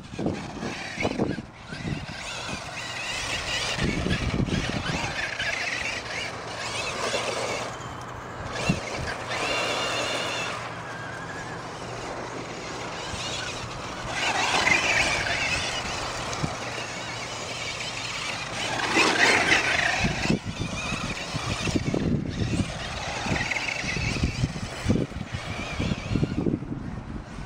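Electric Traxxas E-Slayer Pro RC truck driving hard over grass and dirt, its motor whine rising and falling in pitch as it speeds up and slows, with the tyres churning the ground.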